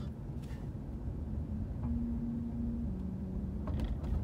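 Steady low road and engine rumble heard from inside a moving car's cabin, with a faint held drone in the middle.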